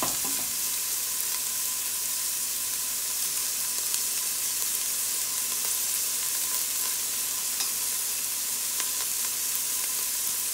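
Sliced onions sizzling steadily as they fry in a little coconut oil in a stainless steel pot.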